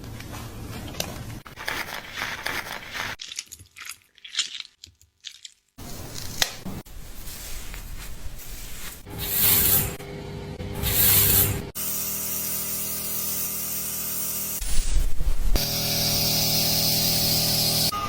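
Hair-washing sounds in quick succession: scratching and rubbing of fingers scrubbing hair and scalp, then two bursts of hissing water spray about nine and ten and a half seconds in. After that comes a steady hum.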